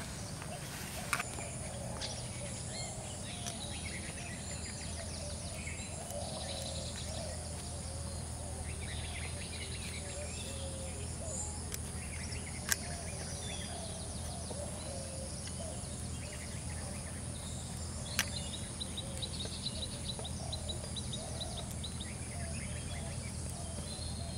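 Birds chirping and calling over a steady low outdoor hum, with a fast ticking trill about three-quarters of the way through. Three sharp clicks stand out.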